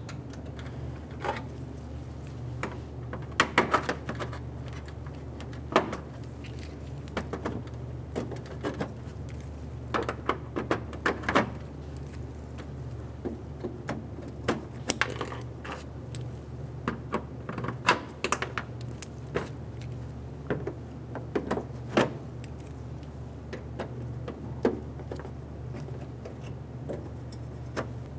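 Plastic push-pin retaining clips being pried out of a radiator-support trim panel with clip-removal pliers: irregular sharp clicks and snaps, sometimes several in quick succession, over a steady low hum.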